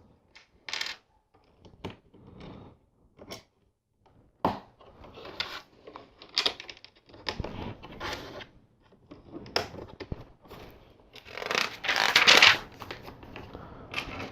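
Plastic LEGO pieces being handled and pressed together: scattered sharp clicks and short rustles, with a louder stretch of plastic rattling and rustling about three quarters of the way in.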